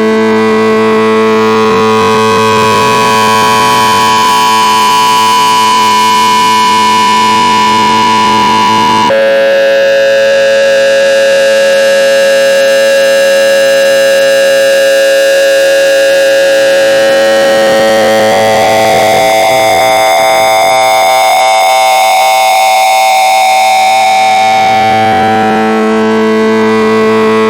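Loud, harsh electronic tone made of several steady pitches sounding together. About nine seconds in it switches abruptly to a different set of pitches, later slides slowly in pitch, and returns to the first chord near the end.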